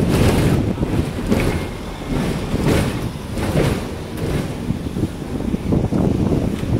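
Hong Kong double-decker tram running along its track, a low rumble, with wind buffeting the microphone in uneven gusts.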